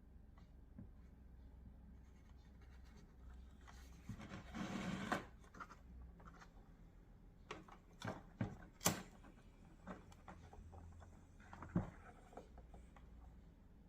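Faint handling sounds of work on headlight wiring: a brief rubbing rustle about four seconds in, then a few sharp separate clicks.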